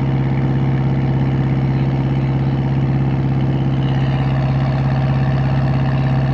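Wooden fishing boat's engine running steadily: a low, even drone with a fast regular chugging pulse.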